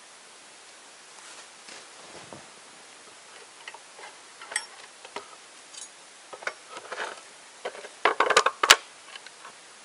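Hands working at a marten trap on a box mounted on a tree: scattered small clicks and knocks, building near the end to a quick run of knocks with one sharp click.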